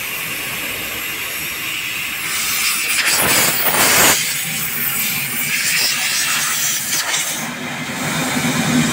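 Compressed air hissing steadily through a removed exhaust filter canister, blowing out black soot that has clogged it; the blast grows louder for about a second starting three seconds in.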